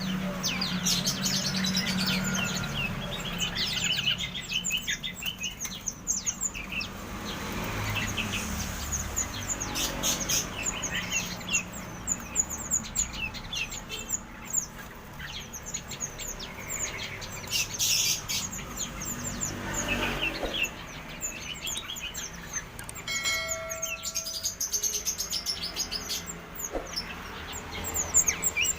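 Many small songbirds of several kinds chirping and calling over one another in a dense, continuous chatter.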